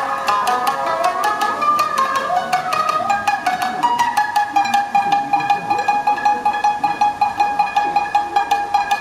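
Shamisen played with a plectrum: quick plucked runs, then from about four seconds in one note struck over and over in a fast, even rhythm, each stroke with a sharp click.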